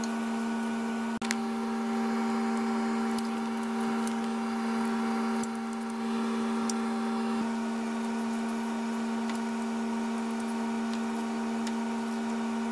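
A steady, even machine hum with several faint short clicks over it.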